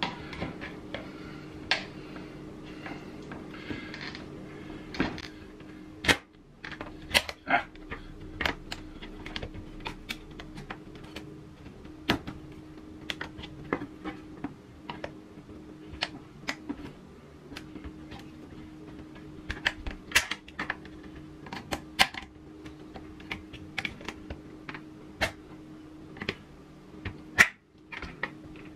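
Screwdriver and putty knife clicking and scraping against the metal retaining tabs and plastic housing of a dishwasher soap dispenser as the tabs are pried up: an irregular string of sharp clicks and taps over a faint steady hum.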